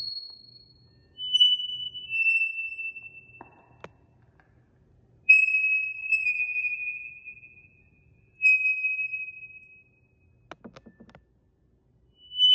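Clear, high, chime-like ringing tones, part of the piece's sound score. Each tone starts sharply and fades over a second or two, and each sags slightly in pitch as it fades; about five come one after another. There is a short rattle a few seconds in and a brief patter of soft clicks near the end.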